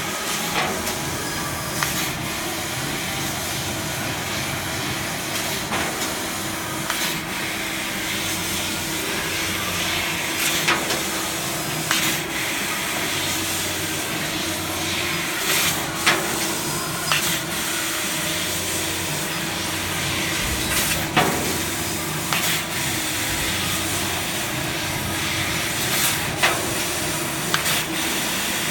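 MetalTec 1530 fiber laser cutting machine cutting sheet metal: a steady hiss with a faint steady hum underneath, broken every second or two by short sharp crackles.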